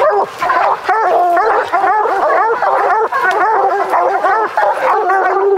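A pack of bear hounds baying together at the foot of a tree, many short bawls overlapping with no break: the tree bark of hounds that have a bear treed.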